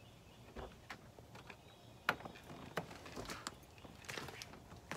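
Faint footsteps on a gravel lot strewn with dry leaves, with scattered clicks and knocks as an SUV's driver door is opened.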